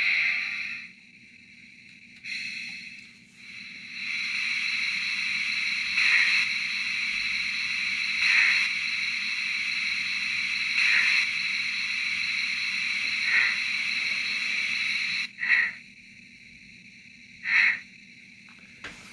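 Digital steam-locomotive sound from an N-scale model on a roller test stand: the end of a whistle fades out, then a steady steam hiss with slow chuffs about every two and a half seconds. The hiss cuts off about fifteen seconds in, leaving three lone chuffs.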